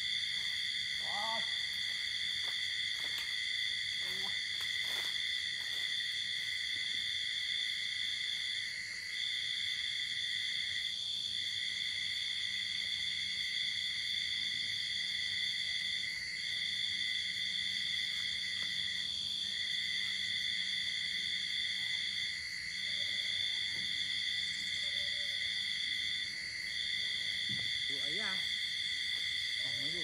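Steady, high-pitched drone of cicadas, several layered tones at once, each cutting out briefly now and then before starting again.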